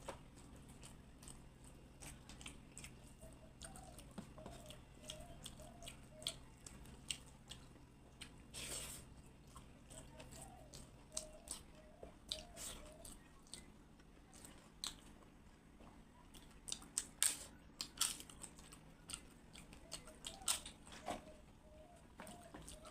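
Close-miked chewing and eating of rice, dal and fried vegetables, with many short, sharp crunchy bites and wet mouth clicks. The crunches come thicker and louder in the second half.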